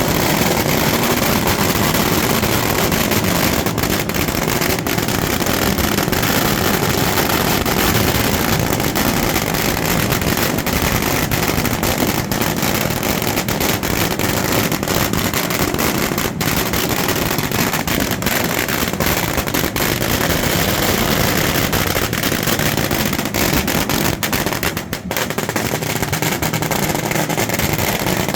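Firecrackers and bangers going off in a continuous, loud crackling din, with no let-up.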